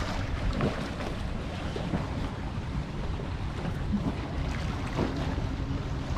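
Wind rumbling on the microphone over the wash of bay water below the pier.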